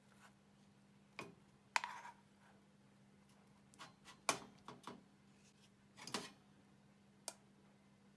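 A series of light clicks and knocks at irregular intervals, one with a brief metallic ring, from handling camp cookware such as an aluminium mess tin and sierra cups, over a steady low hum.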